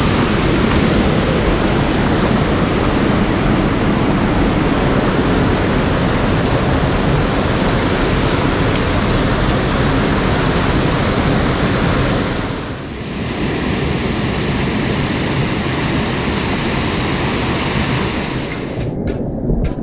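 Mountain stream water rushing loudly and steadily over rocks. It dips about two-thirds of the way through and carries on slightly duller, and a few sharp ticks come in near the end.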